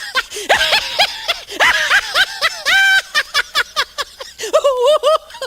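High-pitched, cartoonish laugh sound effect: a rapid chain of short 'ha' syllables with a bouncing pitch, one held a little longer near the middle.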